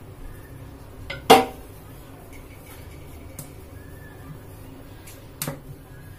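A wooden rolling pin being picked up and used to roll out dough on a hard counter: a loud sharp clack with a short ring about a second in, a smaller clack near the end, and faint ticks in between.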